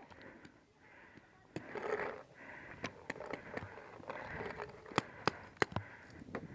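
Footsteps and rustling through long grass as a player walks, with several sharp pops scattered through it, the loudest about five seconds in.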